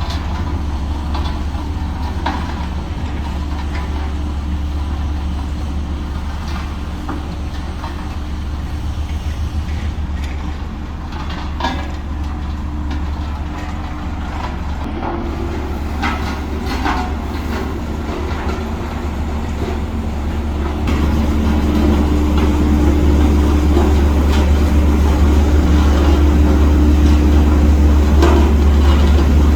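Heavy diesel earthmoving machinery running steadily with a deep drone, with a few short metallic knocks around the middle; the engine grows louder about two-thirds of the way through.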